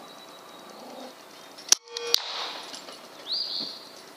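A single shot from a Benjamin Armada .22 caliber air rifle about halfway through, a sharp crack followed about half a second later by a second sharp click. A short chirping bird call follows near the end.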